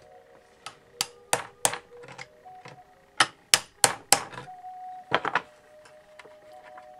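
Hammer striking on a wooden base: a run of sharp blows at about three a second for roughly four seconds, then a quick cluster of three strikes about five seconds in.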